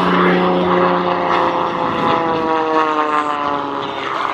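The 385-horsepower piston engine and propeller of an MXS-RH aerobatic monoplane, droning loudly overhead; the pitch holds for a second or so, then falls steadily through the rest of the stretch.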